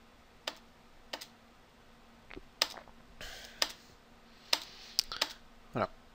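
Computer keyboard keys pressed one at a time, about nine sharp clicks at uneven intervals, as the same key is struck again and again to jump from one search match to the next.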